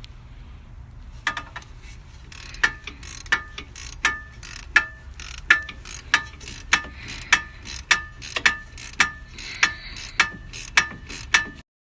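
Hand tool working on metal: a run of sharp metallic clicks, roughly one every half second or so, each with a brief ring, over a low steady hum. The sound stops abruptly just before the end.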